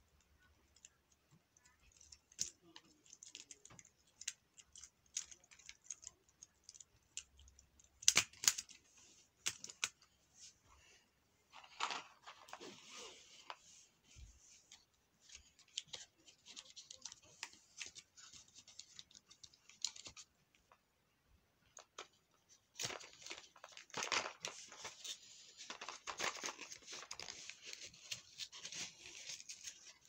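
Hands handling plastic fidget toys and small cardboard packaging: scattered small clicks, then bursts of rustling and crinkling as a small cardboard box is opened, densest over the last several seconds.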